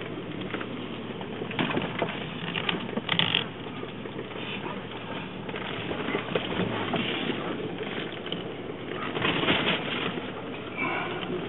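Handling noise from a handheld camera being swung about: irregular rustling with scattered knocks, heaviest about three seconds in and again near the end.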